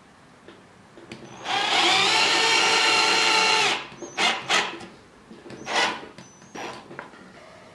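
Cordless drill-driver running steadily for about two seconds, driving a screw through a metal bracket into chipboard, then stopping abruptly; several short sharp clicks follow.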